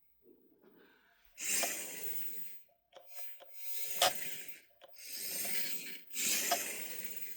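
Racent RDS64 1/64 micro RC car's small motor and gears whirring in four short bursts of about a second each, as the car is driven in quick spurts.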